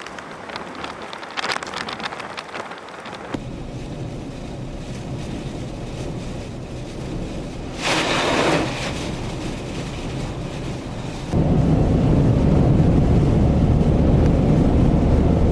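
Tropical-storm wind and rain, the wind buffeting the microphone as a low rumble. The rumble jumps abruptly louder about eleven seconds in, after a brief gust of hiss near the middle.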